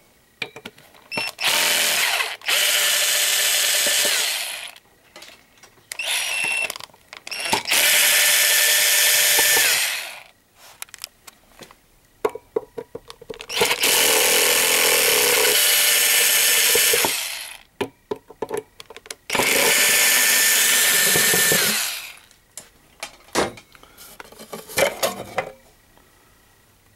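Cordless battery drill with a T25 Torx bit, run in about six bursts of one to four seconds each to back out the cover screws of a two-way radio. Between the runs there are short clicks and clatter from handling the screws and the cover.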